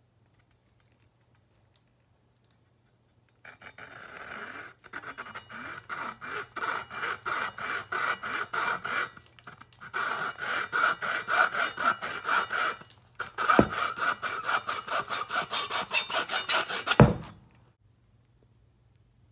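Hand hacksaw cutting across a wooden dowel: quick back-and-forth rasping strokes in several runs with brief pauses, starting a few seconds in and ending with a sharp knock about seventeen seconds in.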